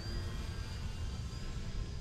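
Faint, steady whine of an E-flite Turbo Timber RC plane's electric motor and propeller in flight, over wind rumbling on the microphone.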